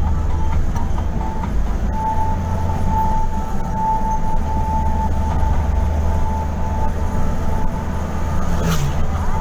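Steady low rumble of a vehicle on the move, with a steady higher-pitched tone over it from about two seconds in.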